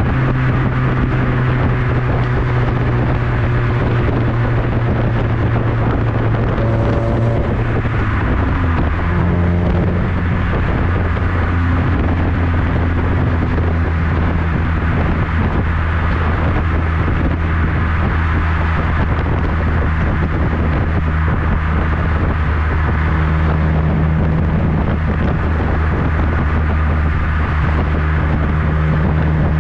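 2010 Corolla XRS's 2.4-litre four-cylinder heard at the Borla exhaust tip while driving: a steady exhaust drone that drops to a lower pitch about eight seconds in and then holds steady.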